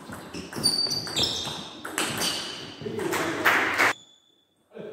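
Table tennis rally: the plastic ball clicking off the rubber bats and the table in quick succession. The hits stop about four seconds in.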